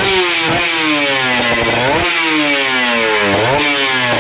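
Kawasaki KR150's single-cylinder two-stroke engine with an AHT expansion-chamber exhaust, revved in repeated throttle blips. The revs climb quickly about three times and die away slowly in between.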